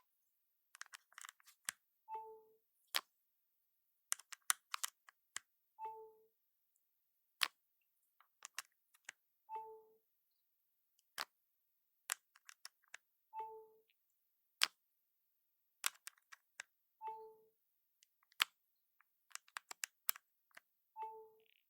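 Lightning cable plugged into an iPhone over and over with small plastic-and-metal clicks. Each connection sets off the iOS charging chime, a short two-note ding stepping down in pitch, six times about every three and a half seconds.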